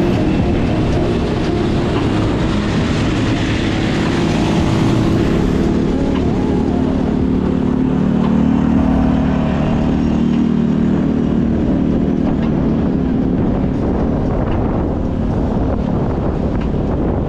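Steady road traffic noise, with a passing vehicle's engine swelling and fading about six to twelve seconds in.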